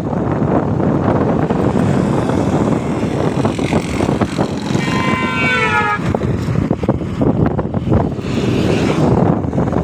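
Loud, steady rushing noise with no clear pitch. A short pitched call, falling slightly, sounds about five seconds in and lasts about a second.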